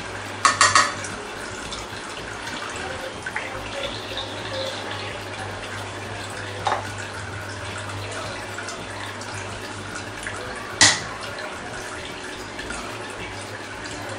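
Steel tumbler knocked against a wooden chopping board to turn out a steamed cake: a quick run of taps about half a second in and one sharp knock later on, over a steady hiss and low hum.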